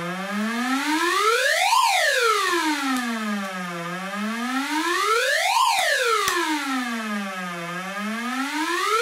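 FusoElektronique NDR-113 noise machine, built around the SN76477 sound-effects chip, putting out a buzzy, overtone-rich tone whose pitch sweeps slowly up and down like a siren. It rises from a low hum to a sharp peak and sinks back about every four seconds, peaking three times.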